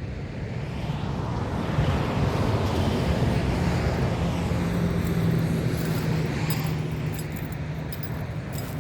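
A vehicle passing: a broad road noise that swells over about two seconds, holds with a steady low hum, then fades slowly.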